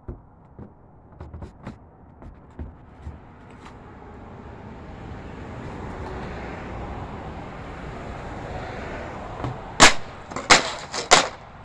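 A few light knocks on plastic trash bins as someone climbs up onto them, a swelling rush of noise through the middle, then three loud, sharp slams about ten seconds in as a snowboard jumper lands on the pavement.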